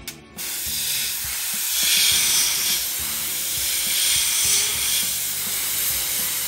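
Gravity-feed airbrush spraying paint: a steady hiss of compressed air that starts about half a second in.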